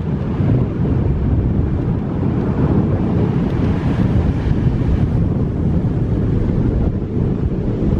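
Wind buffeting the microphone of a moving car, over the steady rumble of the car driving along the road. Loud and continuous, with a slight swell about halfway through.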